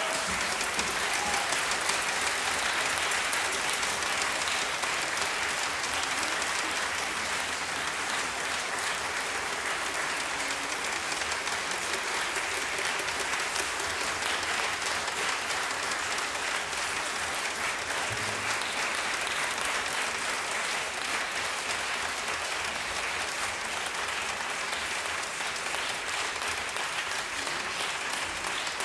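Concert audience applauding: steady, dense clapping.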